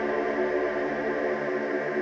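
Ambient electronic background music of sustained chords.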